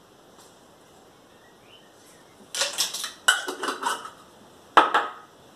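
A set of measuring spoons clattering and clinking as they are handled: quiet at first, then a run of clinks about two and a half seconds in and one sharp clink near the end.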